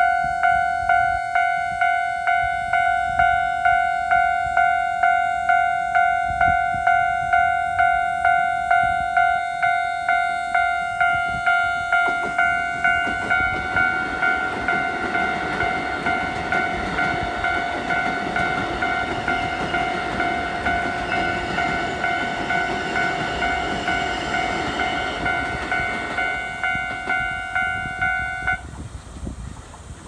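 A level-crossing warning bell dings in a steady, even rhythm and cuts off shortly before the end. From about twelve seconds in, a Keikyu electric train passes close by, its wheels rumbling and clattering over the rail joints.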